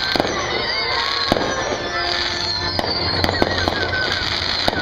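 Aerial fireworks going off in quick succession: many sharp bangs and cracks over a steady crackling rumble.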